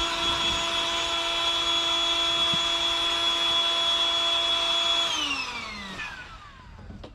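Electric air pump motor running with a steady whine while inflating an inflatable boat, then switched off about five seconds in and winding down, its pitch falling away.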